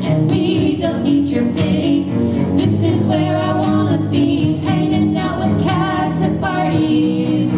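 A woman sings a pop-folk song live through a PA, backed by cello.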